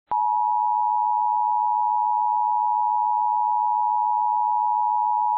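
Emergency Alert System attention signal: one loud, steady, unbroken alert tone that starts just after the beginning, introducing a required weekly test.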